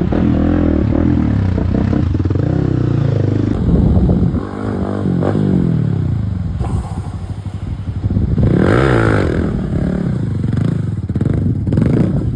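Hero Xpulse single-cylinder motorcycle with an aftermarket Akrapovič exhaust, running under way with the engine note rising and falling as the throttle is opened and closed, a sharp rev-up and drop about two-thirds of the way through.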